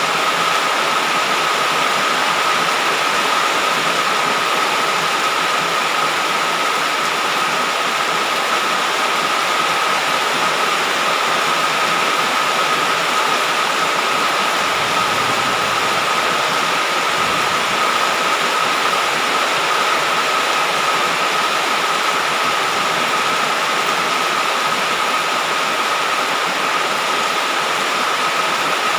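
Heavy rain falling steadily, a dense even hiss with a thin steady high tone running through it.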